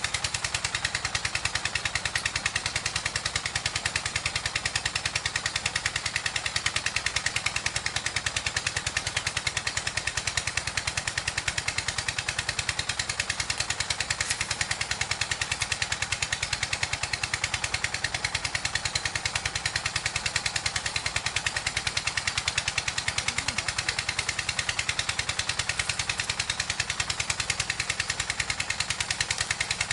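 A small engine running steadily at a constant speed, its rapid firing pulses even throughout.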